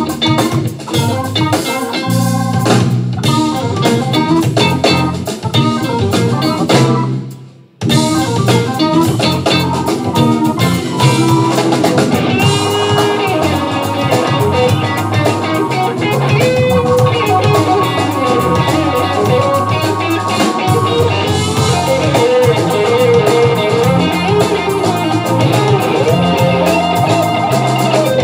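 A live funk band playing, with electric guitar to the fore over bass, drums and keyboard. About a quarter of the way through, the whole band stops dead for an instant and comes straight back in.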